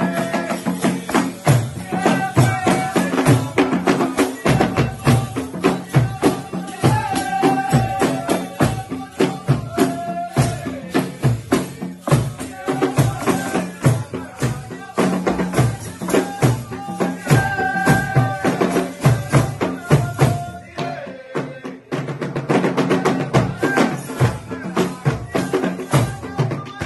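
Rwandan traditional music: tall ingoma drums beating a fast, steady rhythm under a group singing in repeated phrases.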